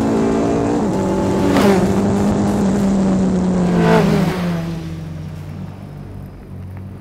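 BAC Mono's specially built four-cylinder racing engine running at high revs, its pitch dropping abruptly at each sequential gear change, about one and a half and four seconds in. After the last change the engine note falls lower and quieter as the car slows.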